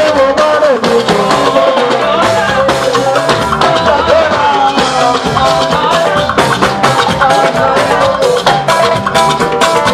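Upbeat music with a busy, steady percussion beat under a wavering melody line.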